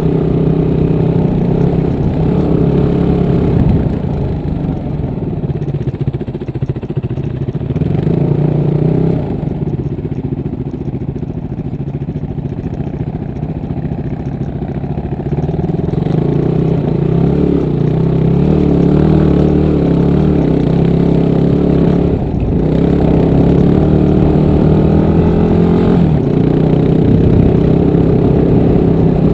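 Dual-sport motorcycle engine heard up close from the bike itself while riding a rough dirt track, its note rising and falling with the throttle and gear changes.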